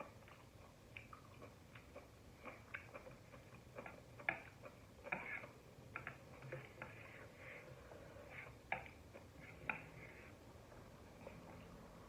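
Close-miked chewing of noodles and mushrooms: irregular soft wet smacks and clicks from the mouth, with a few sharper clicks about four seconds in and again near nine and ten seconds.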